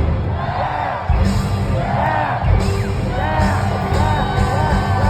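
Live rock band playing loud, with heavy bass and drums. Voices sing and whoop over it. The low end drops out briefly just before a second in, then comes back in full.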